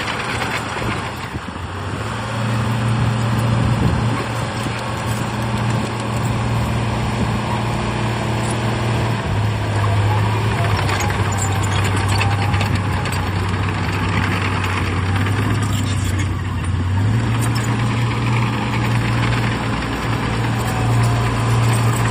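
Heavy diesel engine of earthmoving machinery running steadily. Its pitch drops a little about nine seconds in and rises again near seventeen seconds, with some scattered clatter in the middle.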